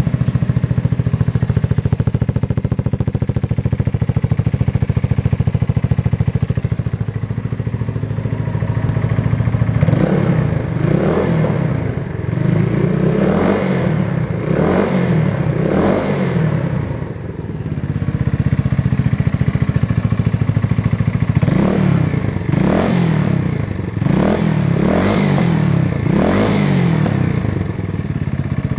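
Yamaha TW225E's air-cooled single-cylinder four-stroke engine, fitted with an aftermarket Super Sound muffler, idling steadily. About ten seconds in, the throttle is blipped in a series of quick revs. After a short stretch of idling comes a second run of about six revs.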